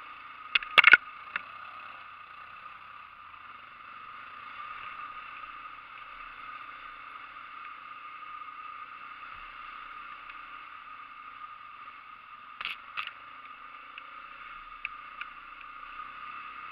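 ATV engine running steadily at idle. Several sharp knocks or clatters come just under a second in and twice more about three-quarters of the way through.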